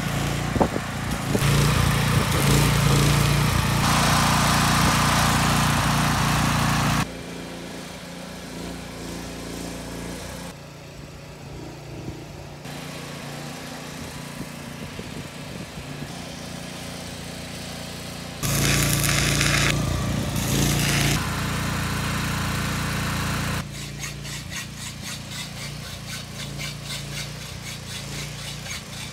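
Electric arc welding on a steel truss frame: the arc crackles and hisses over a steady low hum for about seven seconds. After a cut, a steady machine hum runs on more quietly, with a second louder stretch of the same sound further in.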